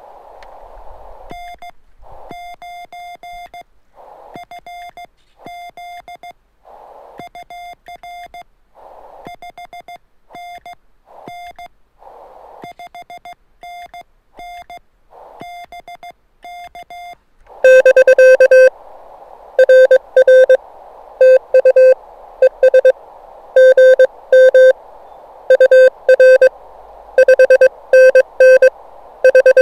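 Morse code on a ham radio transceiver on the 20-meter band. At first another station's keyed tone comes through the receiver's hiss. Just over halfway through, a louder, lower keyed tone takes over: the operator's own sending sidetone.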